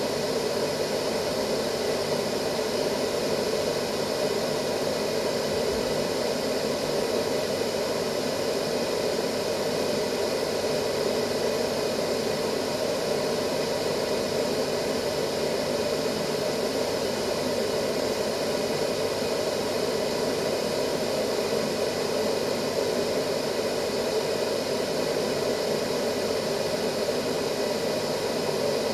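Continuous white noise: an even, unchanging rushing hiss with no breaks.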